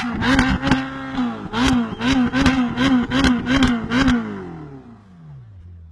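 Ferrari engine being blipped repeatedly, about nine quick revs in four seconds with a sharp crack at each one. The revs then fall away steadily toward idle.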